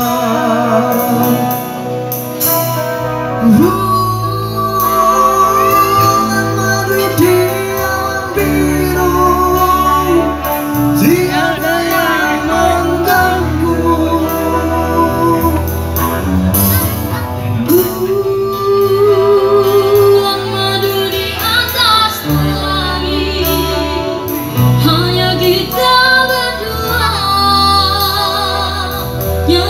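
Live band playing a pop ballad through a PA, with electric and acoustic guitars over bass and a woman singing.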